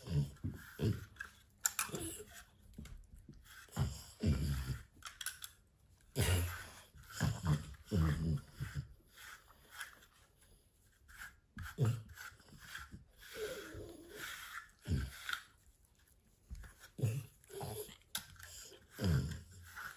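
French bulldog breathing noisily in irregular bursts a second or so apart, the snuffling, wheezy breathing typical of its flat-faced breed.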